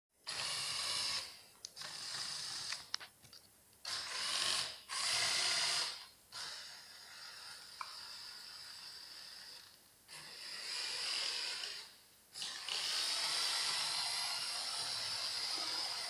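Lego Technic Power Functions large motors driving a small four-wheel-drive remote-control Lego car, whirring with gear noise. The sound starts and stops about seven times as the car is driven and halted.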